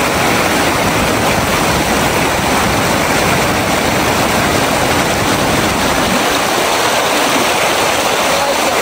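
Fast mountain stream rushing over rocks in white-water rapids: a loud, steady rush of water.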